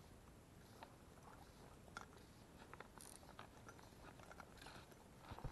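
Near silence with faint scattered clicks and light rustles from fly line being stripped in by hand on a fly rod and reel.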